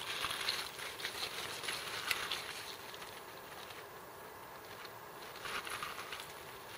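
A few light crunches of boots shifting on loose river gravel in the first two seconds, over a faint steady hiss, then a short swishing rustle near the end as a hand line is cast.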